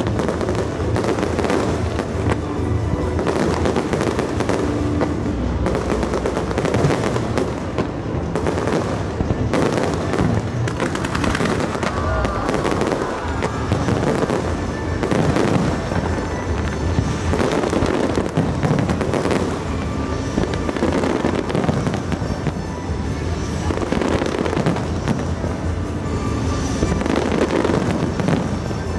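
Fireworks display going off in a dense, continuous barrage of bursts, one overlapping the next with no pause.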